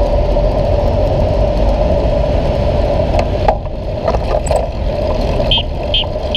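Steady rumble of city traffic and road noise from a moving bicycle. Near the end, short high electronic beeps begin, evenly spaced at about two a second, typical of an accessible pedestrian-crossing signal.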